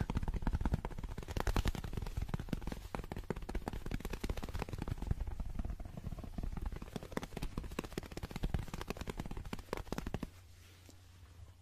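Very fast fingertip tapping and scratching on a small handheld object held close to the microphone: a dense, rapid run of taps that stops suddenly about ten seconds in.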